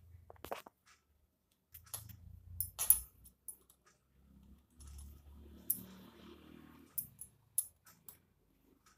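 Small scattered clicks and clinks from hand-sewing a knitted wool doll: glass bangles knocking together and against a glass tabletop, with a soft rustle of handling around the middle and the sharpest click about three seconds in.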